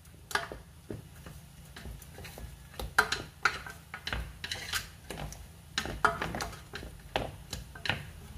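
A stirring utensil tapping and scraping against the side of a large metal pot as steamed sticky rice is stirred, making irregular light clicks.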